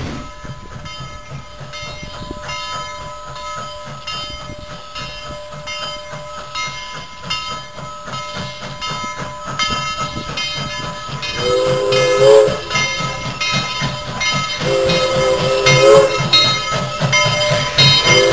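Southern Railway 4501, a 2-8-2 Mikado steam locomotive, approaching under steam with a steady rhythm of exhaust beats that grows louder. About two-thirds of the way in it blows its whistle, several notes at once, in long blasts: two of about a second each and a third starting near the end.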